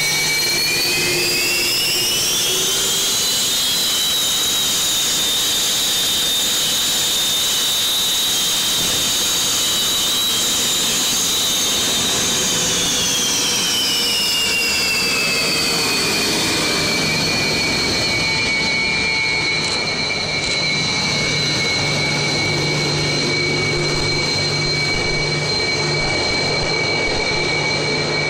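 Su-27 fighter's twin AL-31F turbofan engines whining loudly as the jet taxis. The whine rises in pitch over the first few seconds and holds. About halfway through it falls, then settles at a lower, steady pitch over a constant rushing noise.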